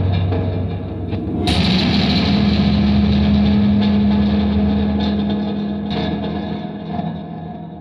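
Electronically processed sound-design music made from recordings of sculptures being hit and scratched. A low drone gives way, about one and a half seconds in, to a sudden harsh, noisy swell over a steady hum, which slowly fades toward the end.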